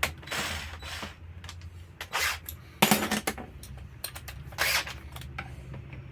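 Plastic starter housing of a Makita chainsaw being fitted back onto the saw by hand: a series of short scrapes and sharp clicks, the sharpest about three seconds in.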